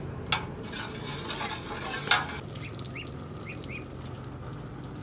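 Metal spoon stirring liquid in a metal pot, with a wet swishing and two sharp clinks of the spoon against the pot, about a third of a second and two seconds in. A few short chirps near the three-second mark.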